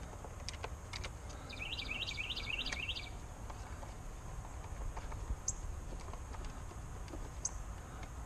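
A songbird's quick trilling call of about six repeated notes, followed later by two short high chirps, over a low outdoor background rumble. A few light clicks sound in the first three seconds.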